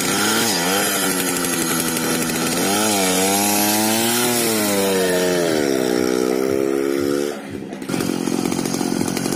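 80cc two-stroke bicycle engine kit running, its revs rising and falling several times as the throttle is worked, with a brief drop a little after seven seconds before it picks up again.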